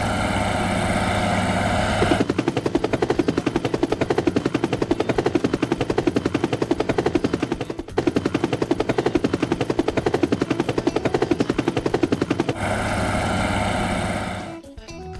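Helicopter sound effect: a steady turbine whine, then fast even rotor chopping for about ten seconds, then the whine again, fading out near the end.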